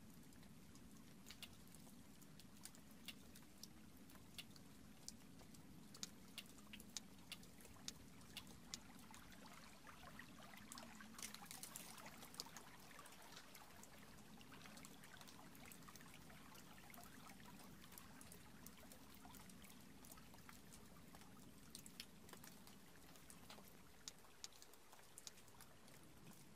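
Faint trickle of snowmelt water running through rock crevices, with scattered small drips.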